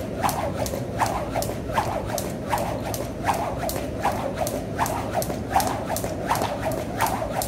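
Jump rope skipping, the rope slapping the floor in a steady rhythm of about two to three slaps a second.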